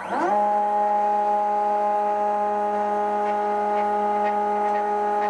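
DIY CNC router's axis stepper motors driving a rapid G0 move to the tool-probe button: a whine that rises quickly in pitch as the axes speed up, then holds one steady tone with several overtones.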